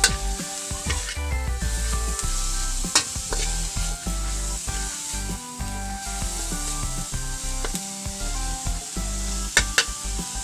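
Ant eggs sizzling as they fry in a wok, stirred and scraped with a metal spatula, with a few sharp clinks of the spatula against the pan. Background music plays underneath.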